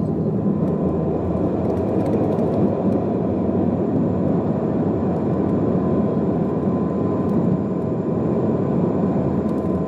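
Airliner jet engines at takeoff power, heard from inside the cabin during the takeoff run and climb-out: a steady, heavy rushing noise with a faint thin whine running through it.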